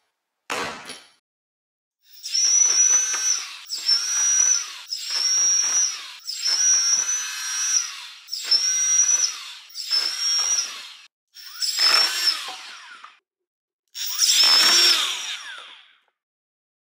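Brushless flywheel motors of a homemade foam-ball blaster whining up and firing in about eight separate bursts of a second or so each. A high whine in each burst dips briefly as the balls are shot.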